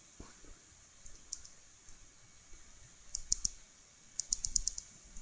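Light, sharp clicks from a computer mouse and keyboard. There is a single click about a second in, two or three near three seconds, then a quick run of about six clicks around four to four and a half seconds.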